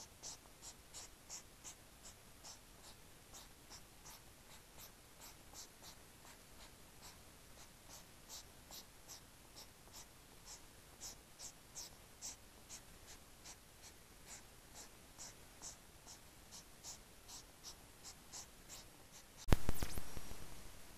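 European hedgehogs courting: rhythmic snorting puffs, about three a second, as the female stamps and pivots while the male circles her. Near the end a sudden loud knock, the loudest sound, dies away over about a second.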